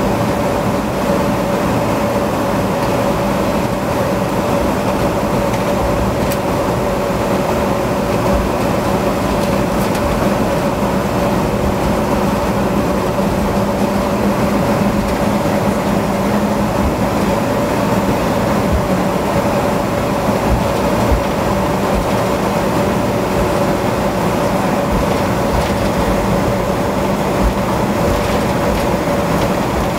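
Inside an airliner cabin during a night taxi: the jet engines run at low taxi thrust, a steady engine drone over rumbling, with several constant tones that do not change.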